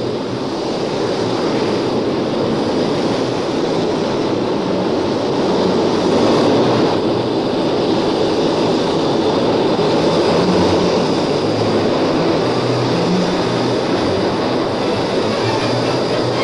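MiG-21 fighter's single turbojet engine running as the jet taxis, a loud steady rushing noise with a thin high whine over it.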